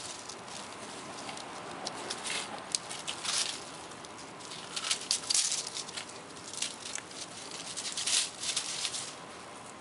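Dry fallen leaves rustling and crackling in short, irregular bursts as kittens scamper and pounce through them. The loudest flurries come about two, five and eight seconds in.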